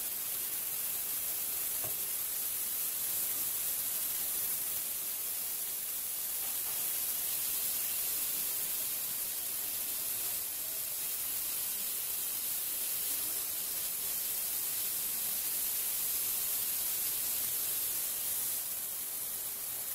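Steady sizzling hiss of dried fish (shutki), onions and green chilies frying in oil in a pan, as ground spices are fried in with them.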